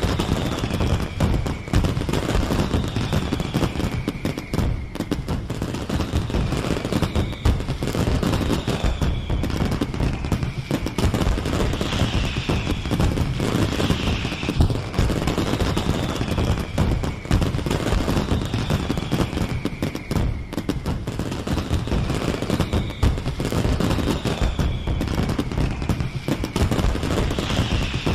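Fireworks display: a dense, continuous barrage of crackling bangs and booms, with short falling whistles every second or two.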